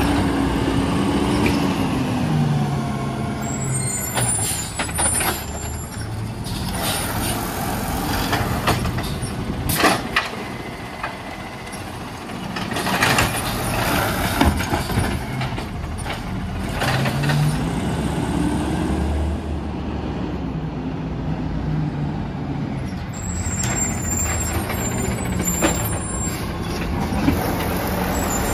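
Peterbilt 320 side-loading garbage truck with a natural-gas engine, revving as its automated arm picks up and dumps curbside carts, with air-brake hisses and clunks of the carts and arm. The engine pitch rises twice, and a sharp knock comes about ten seconds in.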